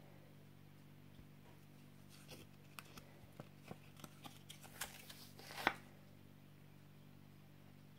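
Faint handling noises from hands working with small objects and packaging: after a quiet couple of seconds, a scatter of small clicks and rustles, the sharpest click near the end, over a steady low hum.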